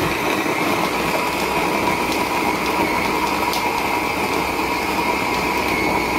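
A small electric mini chopper's motor running steadily with a high whine as it blends a yogurt-and-milk mixture in its bowl.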